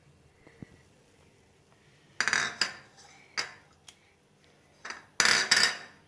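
Metal spoon clinking against a pan and bowls as spice powders are added to boiling milk: several sharp clinks in a burst about two seconds in, and another burst near the end.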